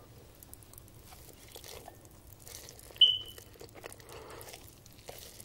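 Close-miked ASMR eating sounds of spicy instant noodles being slurped and chewed: soft mouth clicks and wet noise, with one short, sharp high-pitched tone about three seconds in.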